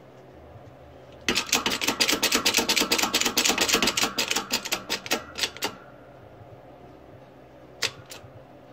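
Rapid mechanical clicking for about four seconds as the shop press ram is lowered onto the pressing tube, then two single clicks near the end.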